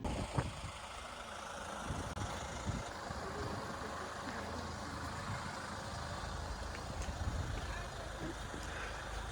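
Steady vehicle noise: a low hum under an even rushing hiss.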